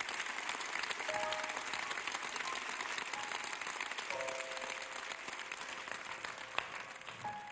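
A studio audience applauding, with a few soft held instrument notes coming in under the clapping.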